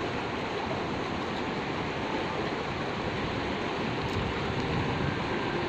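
Shallow, rocky mountain river rushing steadily over and around boulders, a continuous even wash of water noise.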